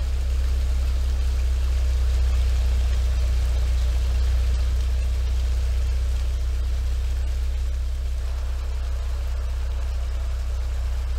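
Steady rush of a small waterfall flowing over a rock wall some way below, with a constant low rumble underneath.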